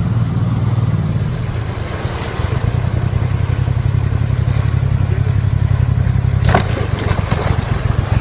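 Boat motor running steadily with a low rumble. About six and a half seconds in there is a brief sharp clatter, after which the motor sound turns choppier.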